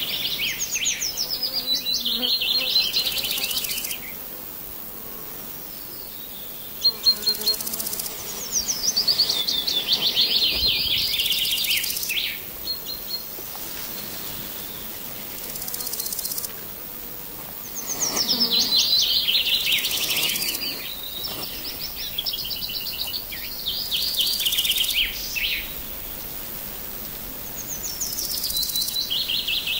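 A wild songbird sings about five times, each song a quick run of notes falling in pitch and lasting three to four seconds, over a faint steady outdoor hiss. A couple of sharp clicks come about seven seconds in.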